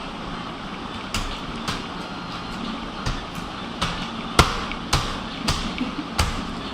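A baby's hands banging on a computer keyboard: irregular key clacks and thuds, about nine over the stretch, the loudest about four and a half seconds in.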